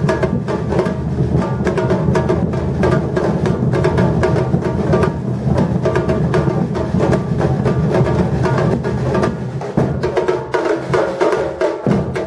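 Batucada drum ensemble playing a samba-reggae groove: deep bass drums under a dense, fast pattern of sharper drum and clacking strokes, with a brief drop in the bass just before the end.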